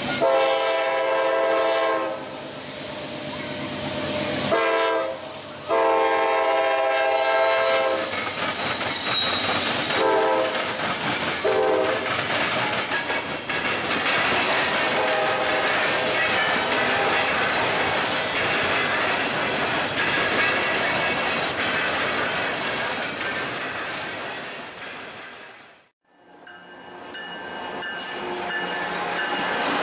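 Freight locomotive horn sounding as a CSX train approaches: two long blasts, then a few short ones. Loaded hopper cars then roll past with wheels clicking over the rail joints. About 26 s in the sound cuts away, and another train's engine builds up near the end.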